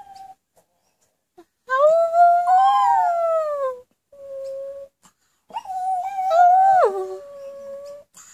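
Pomeranian dog howling with its head thrown back: a long howl that rises and falls, a short steady one, then another long howl that drops sharply in pitch partway through.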